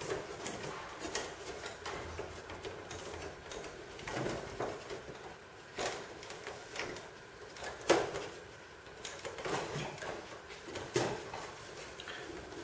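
Plywood panels of a stitch-and-glue sea kayak being handled and stitched together with copper wire: irregular light taps, clicks and rustling, with a sharper knock about eight seconds in.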